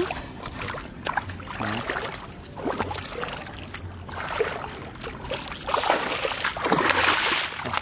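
Hands splashing and sloshing through shallow, muddy floodwater while grabbing for fish, in irregular bursts that grow busier near the end.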